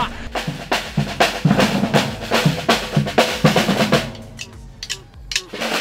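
A samba percussion group plays a driving rhythm on snare drums and larger bass drums struck with sticks. The drumming drops back for a moment about four seconds in, then picks up again.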